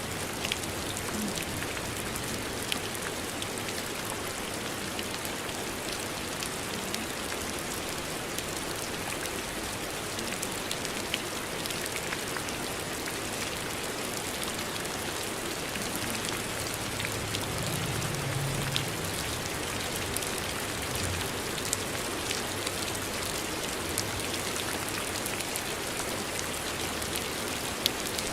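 Steady rain falling: an even hiss sprinkled with sharp little drop ticks.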